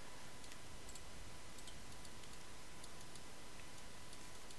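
Faint computer mouse clicks, a few scattered ones, over a steady hiss of microphone noise.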